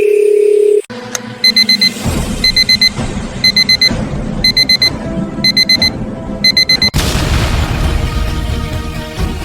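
Digital alarm-clock beeping, quick groups of four high beeps repeated about once a second, after a steady tone that cuts off within the first second. About seven seconds in, a sudden loud blast of noise breaks in and keeps going.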